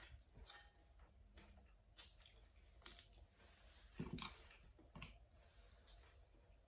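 Faint chewing and wet mouth clicks of someone eating mussels: a handful of separate smacks, the loudest about four seconds in.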